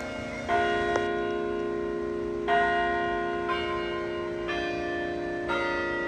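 Tuned bells of a tower carillon playing a slow tune, one struck note at a time, mostly about a second apart. Each note rings on with a long decay under the next.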